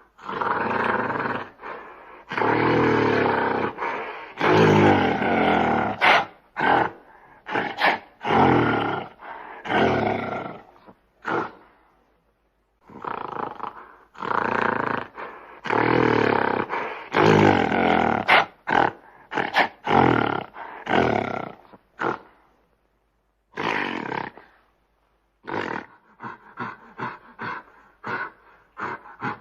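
Gorilla roaring: a string of loud, rough calls a second or two long with short pauses between, then a run of quick short grunts near the end.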